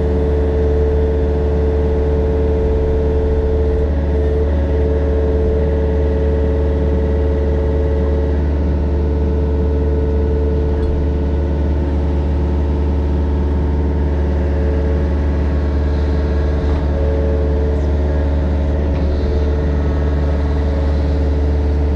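Mini excavator's diesel engine running at a steady speed, with a strong low hum.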